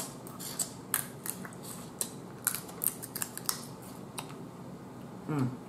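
Boiled blue crab shell being picked apart by hand and eaten, making scattered sharp cracks and clicks. A brief vocal sound comes near the end.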